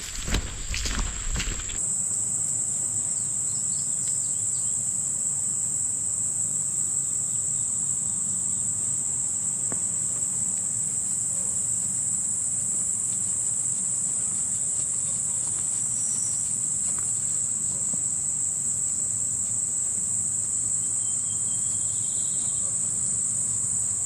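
Dense, steady chorus of insects in a field, one continuous high-pitched buzz that never lets up. In the first two seconds there is a brief rustling and crunching of footsteps in brush, which stops abruptly.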